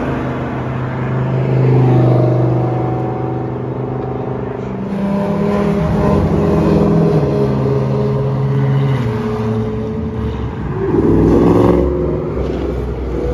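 Sports car engines accelerating away and passing one after another, their pitch climbing and falling through the gears, with a rising rev near the end.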